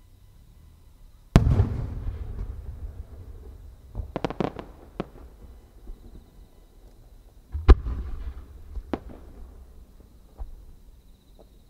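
Large Japanese aerial firework shells going off: a loud bang about a second in with a long rolling echo, a quick run of sharp cracks around four seconds, another loud bang with a rolling echo near eight seconds, then a few scattered smaller cracks.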